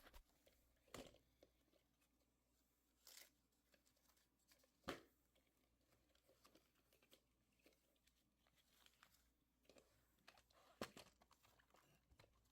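Faint, scattered clicks and knocks of objects being handled, with a short scrape about three seconds in and the loudest knock about five seconds in.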